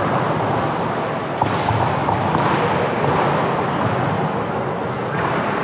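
Basketball game noise: a steady hubbub of crowd and players, with a single sharp knock about a second and a half in, such as a ball bounce.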